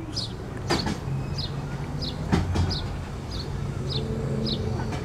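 A steady low mechanical hum, like a motor running, with a small bird chirping over and over, a little under twice a second, and two sharp knocks about one and two and a half seconds in.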